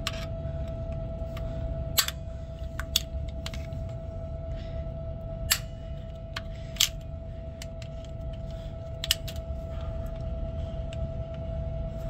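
Sharp metallic clicks of locking pliers clamping and releasing as they squeeze the collar of a quick-splice air fitting onto its brass fitting. About five loud clicks come a second or more apart, over a steady low rumble and a faint steady hum.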